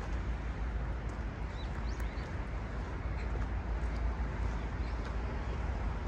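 A few short, high, rising bird chirps over a steady low rumble of city background noise.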